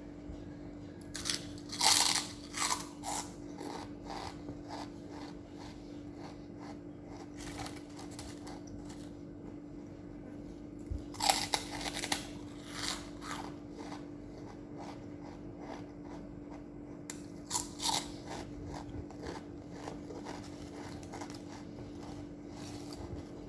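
Crunchy fried pork rinds (chicharon) being bitten and chewed in three bouts, about two seconds in, around eleven seconds in and near eighteen seconds, each a loud crunch followed by a run of smaller chewing crunches. A steady low hum runs underneath.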